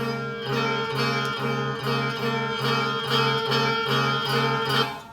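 Guitar strumming the same chord over and over in a steady rhythm, a little over two strokes a second, stopping abruptly near the end.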